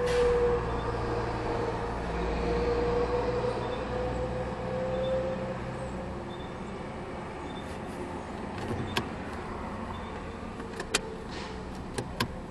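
A motor vehicle running close by, heard from inside a parked car: a steady hum over a low rumble that fades about six seconds in. Near the end come a few sharp clicks.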